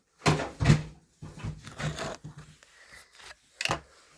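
Knocks and rustling of objects being handled, two louder ones in the first second, smaller ones after, and one sharp knock near the end.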